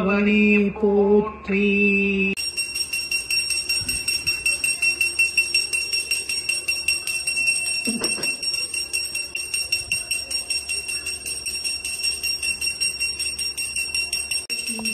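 Brass puja hand bell rung quickly and continuously during aarti, with a steady high ring re-struck about five times a second. It starts about two seconds in, as a chant ends.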